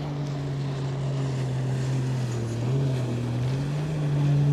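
A low, steady engine drone. Its pitch sags a little midway, then rises as the sound grows louder near the end.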